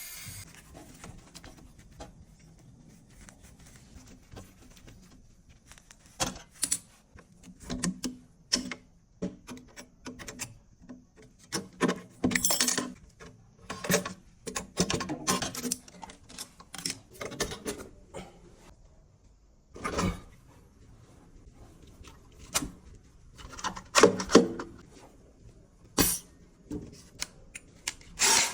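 Irregular clinks, knocks and short scrapes of tools and metal parts being handled. Quiet for the first few seconds, then scattered sharp strikes about six seconds in, bunching together around the middle and again near the end.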